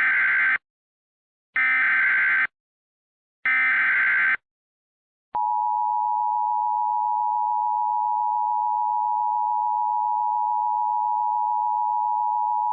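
Emergency Alert System tones: three SAME header bursts of warbling digital data tones, each just under a second with about a second between them, then about five seconds in the EAS two-tone attention signal (853 and 960 Hz together), a loud steady dual tone.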